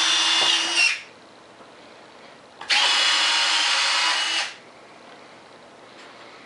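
Hobby King DSR-B landing-gear retracts on an RC jet cycling, giving a steady motorized whine: one run ends about a second in and a second run of under two seconds follows, the gear moving up and down.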